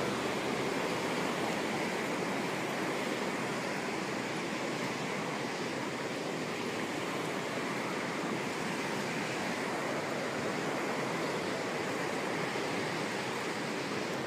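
Steady, even rushing noise of water.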